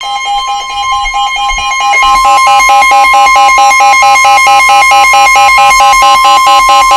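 Emergency alert attention signal: a steady tone near 1 kHz sounding together with a rapidly pulsing lower tone, getting louder about two seconds in.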